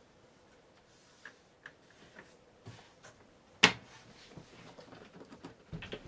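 Light clicks and taps from a steel PC case being handled, with one sharp knock about three and a half seconds in.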